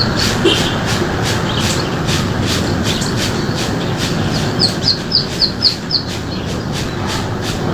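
A bird calls a quick run of about six short high notes near the middle, over a steady noisy background with a fast regular pulse.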